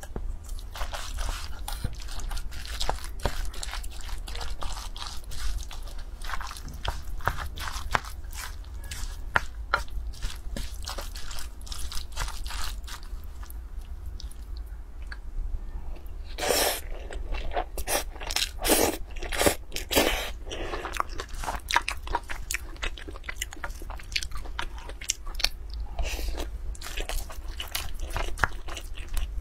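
Wooden spoon stirring and mixing rice into saucy shredded pork in a metal pot: a dense run of small clicks, louder for a few seconds just past the middle.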